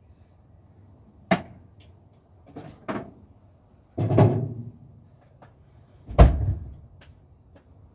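A series of separate knocks and thumps, about six in all, the heaviest a deep thud about six seconds in.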